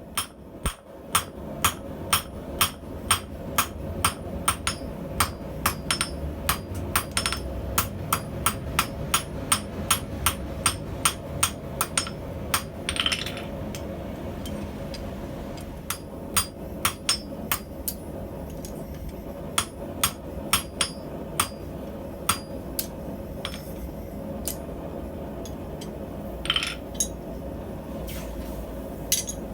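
Blacksmith's hammer striking hot steel on an anvil while forging tong bits: steady ringing blows at about three a second, then a short pause and slower, more spaced blows.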